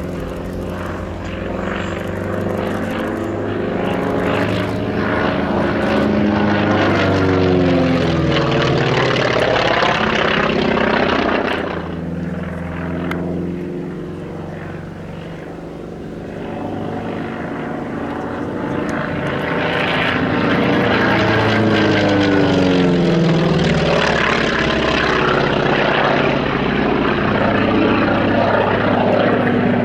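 Piston-engine propeller aircraft flying low past at an airshow: a loud engine and propeller drone that bends down in pitch as it goes by, fades for a few seconds about halfway, then builds again as the aircraft passes a second time.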